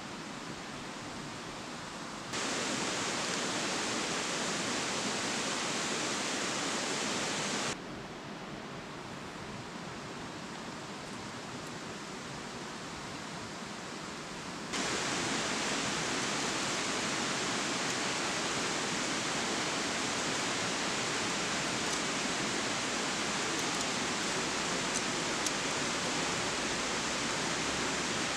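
Steady rushing of a shallow, rocky river running over small rapids. The noise jumps louder about two seconds in, drops back around eight seconds, and rises again about halfway through. A few faint clicks come near the end.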